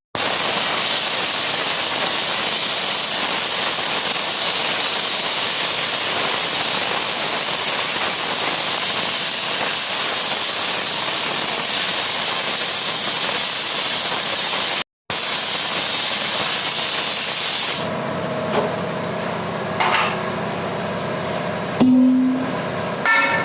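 A loud, steady hiss of gas or air rushing from a tool in a wheel-repair workshop, broken once by a brief gap. About eighteen seconds in it stops, leaving quieter workshop noise with a few knocks and a short hum.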